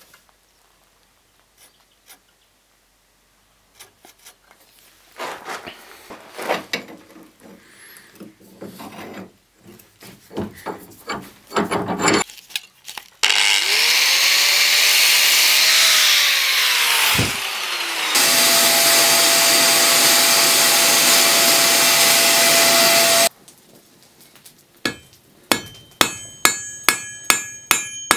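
Rebar being handled and scraped. It is then cut with a power cutting tool for about ten seconds: a loud, steady hiss with a whine, whose pitch sags and falls away once before the cut resumes. Near the end, rapid hammer blows ring out on hot rebar on a steel anvil, about three a second.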